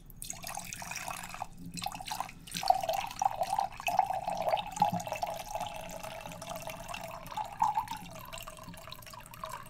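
Scotch whisky pouring from a glass bottle into a ceramic mug, a steady splashing pour.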